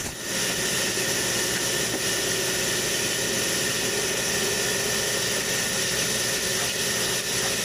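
Bathroom sink tap running steadily into the basin as a constant hiss while a face is washed in it.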